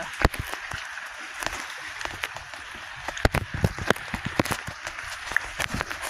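Footsteps crunching and scuffing on gravel and dry leaves, an irregular run of sharp crunches at walking pace.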